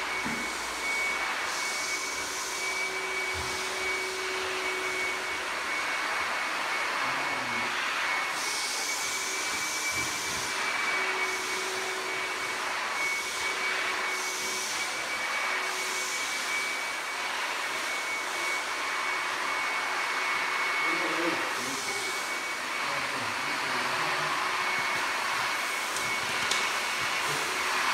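Pressure washer running steadily, its water jet hissing on tile, with a constant high whine from the machine. The spray's hiss swells and fades every few seconds as the jet is swept across the floor.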